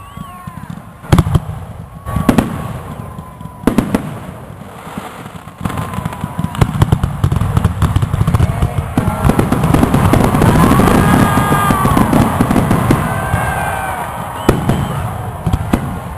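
Fireworks going off: a few separate booming bursts, then a dense run of crackling and popping that builds to a peak before easing. Rising and falling whistling tones sound over it.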